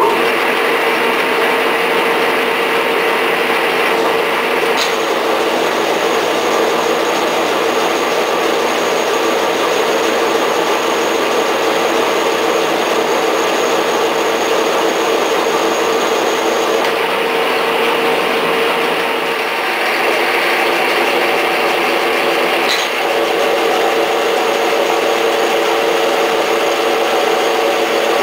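Vintage Lindgren drill press starting up and running, its motor and drive giving a loud, steady mechanical hum while the bit bores into a heavy wooden beam. A thin high whine comes in about five seconds in, drops away for a few seconds past the middle, then returns.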